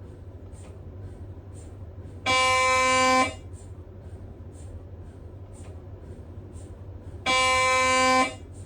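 Siemens Magnetom Spectra 3 T MRI scanner's gradient coils sounding twice in loud, even buzzes about a second long, roughly five seconds apart, over a steady low hum with faint regular ticks between.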